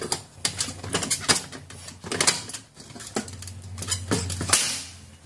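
Hand rivet pliers being squeezed to set a blind rivet in an aluminium frame: a series of irregular metallic clicks and clacks from the tool and the frame.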